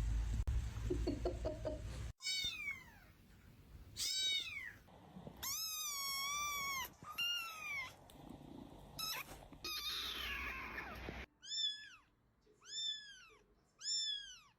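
Domestic cats meowing over and over across several short clips: drawn-out, wavering meows in the middle, then three short meows in a row near the end. A low rumbling noise fills the first two seconds.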